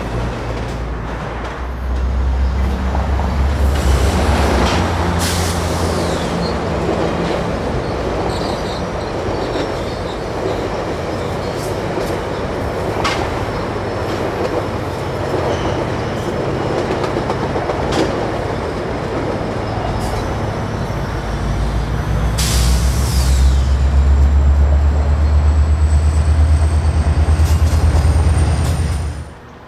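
GO Transit bilevel commuter train passing, its steel wheels rumbling over the rails with a few sharp clicks and a faint high squeal. A diesel locomotive's low drone swells about two seconds in and again, loudest, over the last several seconds, then cuts off.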